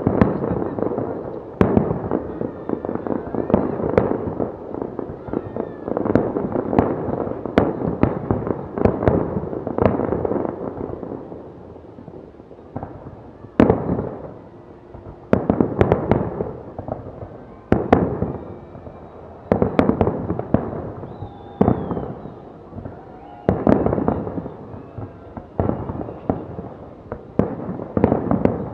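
Fireworks salute going off: a dense run of shell bursts and crackle, thinning out about halfway into separate loud bursts every couple of seconds.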